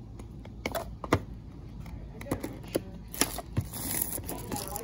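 Scattered clicks and taps of a small cardboard box and its plastic packaging being handled and opened by hand, with a soft rustle of plastic from about three seconds in.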